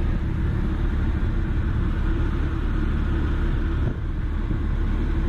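AAON rooftop HVAC unit running: a steady low rumble with a constant hum from its fans and compressors.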